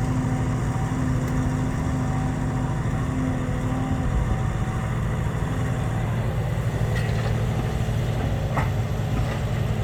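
Heavy diesel engine running steadily at a low, even speed, with a steady tone over it that drops away about four seconds in.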